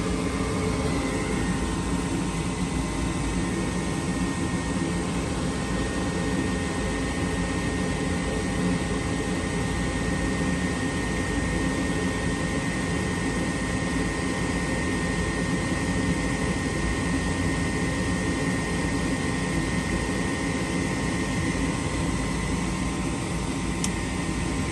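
Gas furnace's draft inducer motor running steadily with an even whirring hum and a few fixed tones, at the start of the heating cycle while the pressure switch waits to prove the draft.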